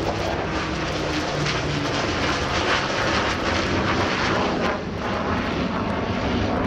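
Avro Lancaster's four Rolls-Royce Merlin piston engines droning in a steady low hum as it passes overhead in formation with a Panavia Tornado GR4 jet, whose broad engine noise grows louder through the middle of the pass.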